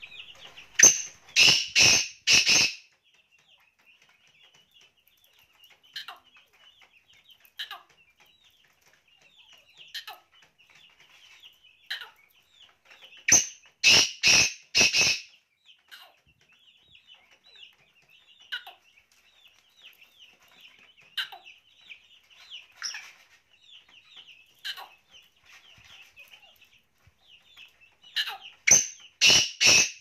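Black francolin calling: three loud, harsh bursts of four or five clipped notes each, about every fourteen seconds. A faint steady chirping runs underneath between the calls.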